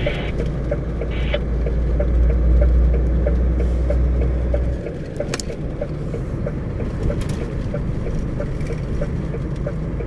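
A vehicle driving on a snow-covered highway: a steady low rumble of engine and tyres, which eases somewhat about five seconds in. A faint, regular light ticking runs beneath it, about two to three ticks a second.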